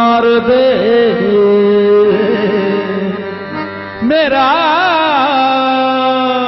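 Qawwali singing with harmonium: a male voice holds long notes over a steady harmonium drone. A short dip in loudness comes just before four seconds in, then a new phrase starts with wavy, ornamented turns on a held note.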